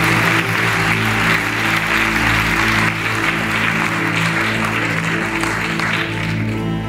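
Background music of slow held low notes, under a round of audience applause that fades away near the end, leaving the music's sustained chords.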